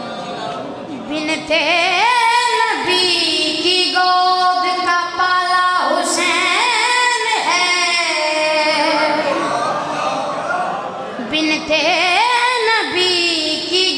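A single high voice sings a slow devotional melody in long held, ornamented notes with wide vibrato, pausing briefly between phrases.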